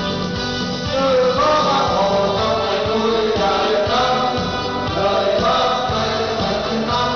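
A group of men singing a song together into microphones, over instrumental backing music with a steady beat.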